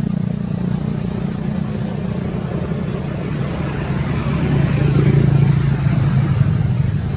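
A motor vehicle engine running steadily as a low hum, growing louder about four to five seconds in.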